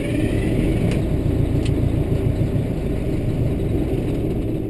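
Detroit Diesel 8V92 two-stroke V8 diesel running steadily just after restarting, heard from inside the truck's cab, and beginning to die down at the end. It is an engine waking after eight years of sitting, which the owner suspects has something up with its fuel.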